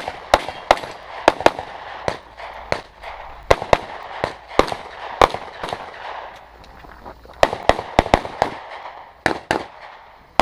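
Rapid handgun gunfire: many sharp shots in quick strings, often in close pairs, with a short lull just past the middle before the shooting picks up again.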